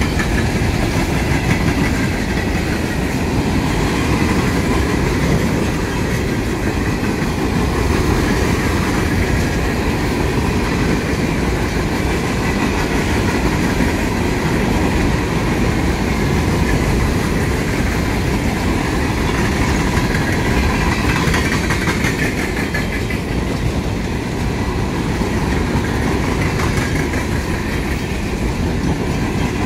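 CSX freight train of open-top hopper cars rolling past at steady speed: a continuous rumble of steel wheels on the rails with fine, rapid clicking.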